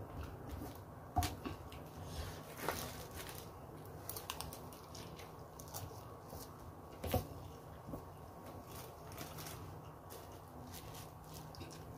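Eating sounds: a metal spoon and fork clicking and scraping on a plastic-covered plate while food is chewed. The sharpest clicks come about a second in, near three seconds and around seven seconds.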